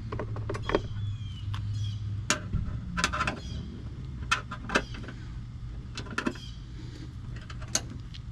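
Irregular light taps and clicks, about a dozen, as the new rubber antenna boot is worked and knocked down into place on the antenna base with a hand tool, over a steady low hum.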